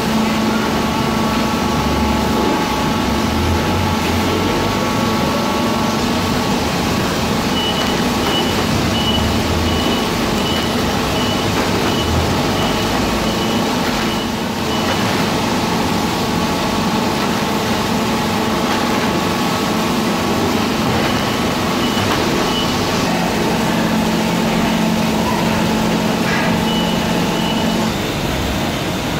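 Steady hum of a factory conveyor line running, with several steady machine tones. A high pulsed beeping, about two beeps a second, comes in for a few seconds three times: near a quarter of the way in, again past two-thirds, and near the end.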